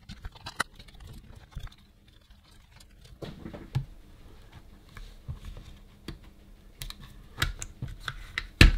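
Scattered small clicks and light knocks of a Bosch IXO 7 cordless screwdriver's plastic casing and a small tool bit being handled, with a few sharper knocks near the end.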